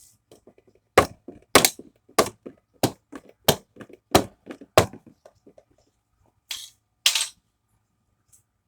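A series of about seven sharp plastic cracks, roughly one every half second or so, then two shorter rasping bursts: an HP inkjet printer's plastic casing and parts being forced apart during disassembly.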